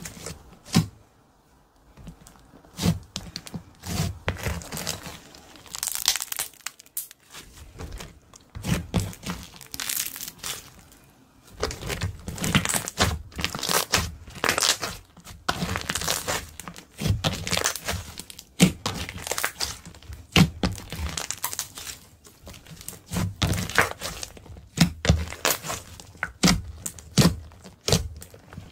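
Thick, sticky slime being kneaded, stretched and pressed by hand against a tabletop: irregular wet pops and crackles as it is worked, with a few short pauses.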